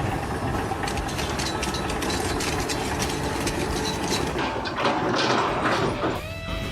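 Mechanical clattering with rapid sharp clicks, as of machinery running; it cuts off suddenly near the end and steady tones come in.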